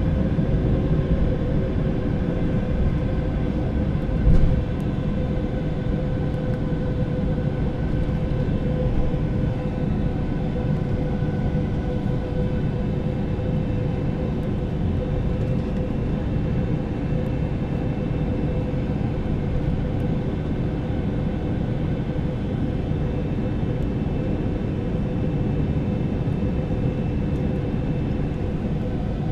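Airbus A321-200 cabin noise from inside the passenger cabin: a steady drone of engines and airflow with a few constant tones over a low rumble, and a brief knock about four seconds in.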